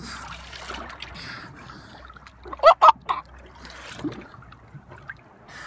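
Northern elephant seal pup crying out in three short, loud calls that bend in pitch, about two and a half seconds in, over water lapping against the boat's hull. The pup is lost and away from its mother.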